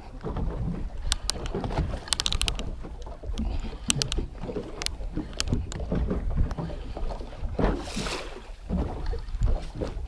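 Wind buffets the microphone and water splashes against a small fishing boat's hull at sea, making an uneven low rumble with a louder surge about eight seconds in. Scattered sharp clicks come from handling the spinning rod and reel.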